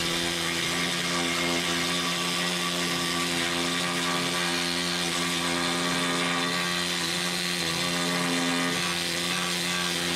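Ingersoll Rand pneumatic needle scaler running continuously against a rusty steel truck frame rail: a steady, rapid, buzzing hammer as the needles knock rust and scale off the metal.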